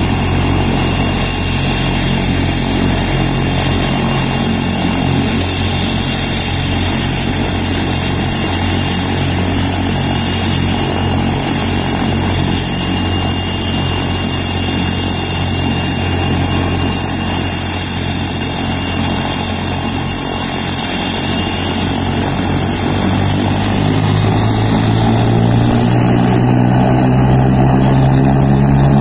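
AgustaWestland helicopter's turbine engines running at ground idle, a steady high whine over a low hum. About 23 seconds in the pitch starts to rise and the sound grows a little louder as the engines spool up ahead of takeoff.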